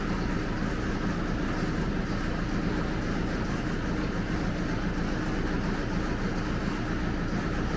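A steady low machine hum with a buzzing edge, unchanging throughout.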